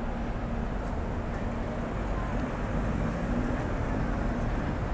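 Street traffic noise: a steady low rumble of passing vehicles with an engine hum.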